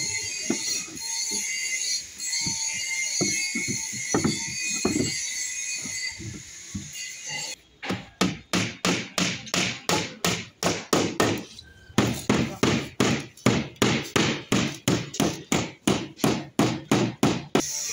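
Hammer driving nails: a run of sharp, even blows, about two to three a second, beginning about halfway in with a short break near two-thirds of the way. Before the blows start, a steady high hiss with scattered knocks.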